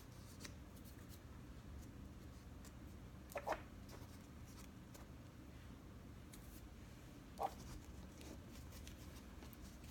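Faint rustling and rubbing of cardstock as fingers press a glued paper layer down around a small paper cake, with two short, slightly louder sounds about three and a half and seven and a half seconds in.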